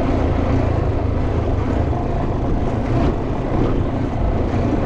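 Motorcycle riding over a rough cobblestone street: the engine runs steadily under a constant din of road and wind noise, with a few light jolts.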